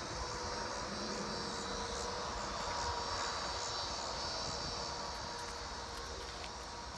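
Insects droning in a steady, high, even buzz, over a faint steady hum and a low rumble.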